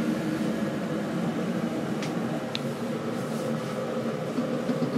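Kettle heating up, a steady rushing rumble as it nears the boil, with a couple of light clicks about two seconds in.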